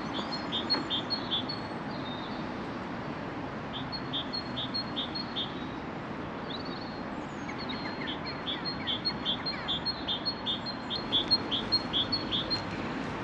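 A small songbird singing, repeating a quick two-note phrase over and over in three runs, the last and longest near the end, over a steady background hiss.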